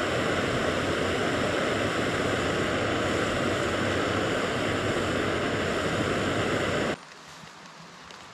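Jetboil canister gas stove burner running at full flame, a steady loud rushing hiss as it heats water; it stops abruptly about seven seconds in.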